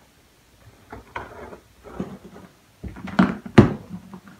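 A large cardboard shipping box being handled with scissors at its taped seam: short rustles and scrapes of cardboard, then a sharp knock against the box about three and a half seconds in, the loudest sound.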